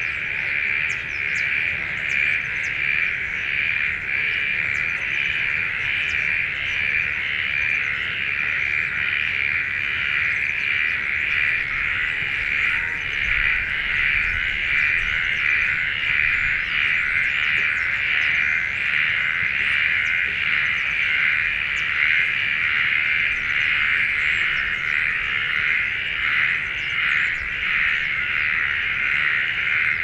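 Dense, continuous chorus of calling insects, a steady high drone with a faint even pulsing, with a low rumble underneath.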